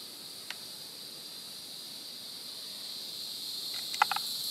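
Steady high-pitched chorus of insects buzzing, growing a little louder toward the end. Faint light clicks of handling sound about half a second in and again just before the end.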